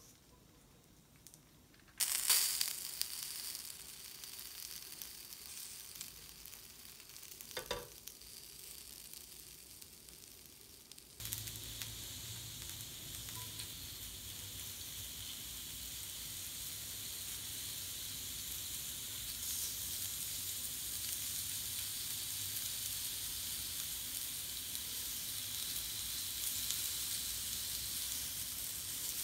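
Vegetable slices sizzling on a hot grill pan: the sizzling starts suddenly about two seconds in and eases off, with one sharp click near the eighth second. At about eleven seconds it jumps up as squash strips sizzle in the pan, then goes on steadily, growing slowly louder.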